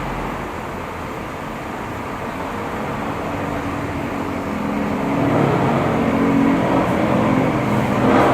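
A motor vehicle engine running, getting louder from about five seconds in.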